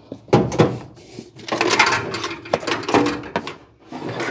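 A fan shroud knocking and scraping against a radiator as it is worked into place, with two sharp knocks near the start and a longer rattling, scraping stretch in the middle; the shroud does not fit the new aluminum radiator.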